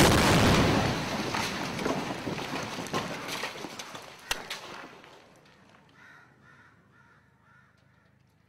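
A loud blast, with its rumble dying away over about five seconds and a few sharp cracks along the way. Faint bird calls follow near the end.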